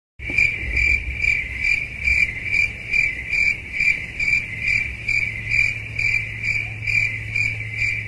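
Cricket chirping sound effect: a shrill chirp repeating evenly a little over twice a second, starting and stopping abruptly.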